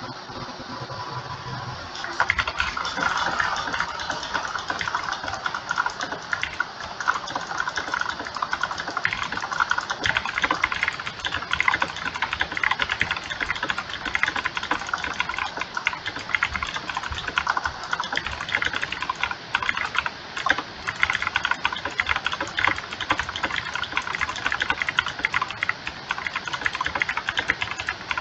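Clicky mechanical keyboard typed on fast, at over 100 words per minute: a dense, unbroken stream of key clicks that starts about two seconds in, after a steady background hum.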